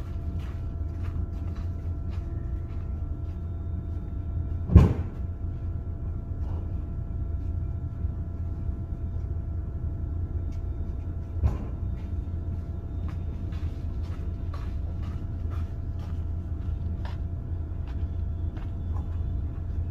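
Knocks and clicks of bed-frame parts being handled during assembly, over a steady low hum. There is one sharp, loud knock about five seconds in and a smaller one near twelve seconds.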